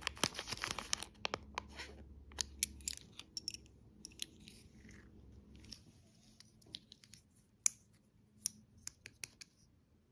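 Close-miked crunching and crackling of candy and dessert: a dense spell of crisp crackles for about the first two seconds, then scattered single crunches and clicks.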